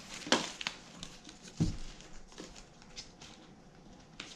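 Unboxing handling noise as drone packaging is opened and gone through: scattered rustling and light taps, with a sharp click near the start and a dull knock a little later.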